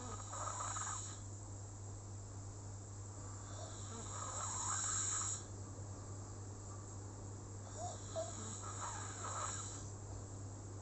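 Slow, steady snoring: three breaths about four seconds apart, each a rush of raspy air, over a steady low hum.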